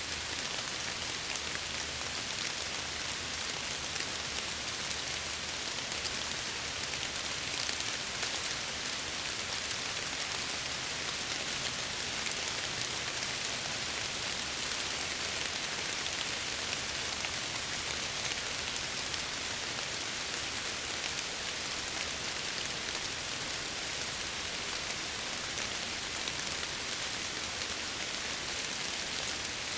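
Steady rain pattering on window glass, a continuous even hiss with fine drop ticks.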